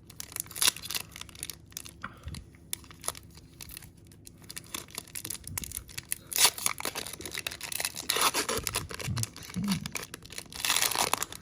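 Trading cards and their foil pack wrapper being handled: a run of short crinkles, rustles and card-sliding sounds, with a longer tearing, crinkling stretch near the end.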